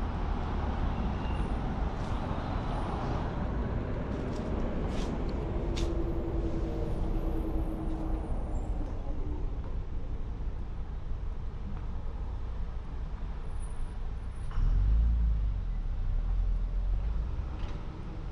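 Road traffic on a city street: motor vehicles passing, with a louder low rumble about three-quarters of the way through.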